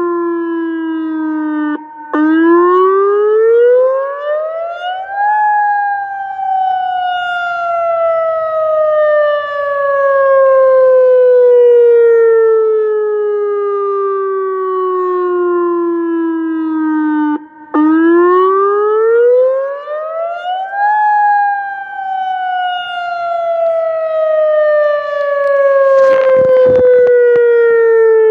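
ATI HPSS-32 electronic outdoor warning siren sounding its wail test tone. Each cycle climbs quickly in pitch for about three seconds, then falls slowly for about twelve, with a brief drop-out at the bottom before each climb, twice here. A few brief knocks come near the end.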